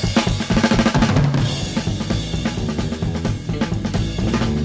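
Psychedelic rock band in an instrumental break: a drum kit plays a busy pattern of bass drum and snare hits over a moving bass line.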